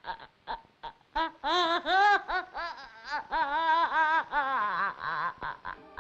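A young woman laughing in a string of short, high peals with a wavering pitch, starting about a second in and trailing off lower near the end.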